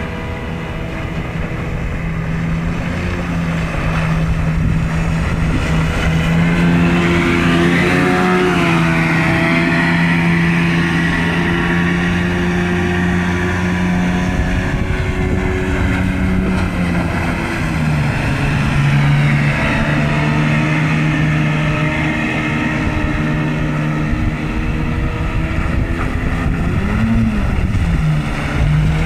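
Two-stroke 30 hp Yamaha short-shaft outboard running at speed, pushing a small boat across flat water. Its steady engine note dips for a couple of seconds about two-thirds of the way through, then briefly rises and falls near the end.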